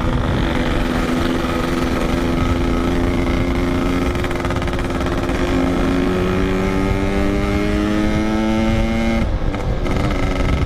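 Yamaha RX-King 135cc single-cylinder two-stroke motorcycle engine running under way, its pitch climbing slowly as it pulls, then dropping off suddenly about nine seconds in as the throttle is eased or a gear is changed.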